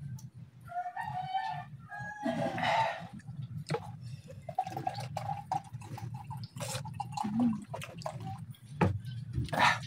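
Short animal calls at a few points, among scattered small clicks and knocks.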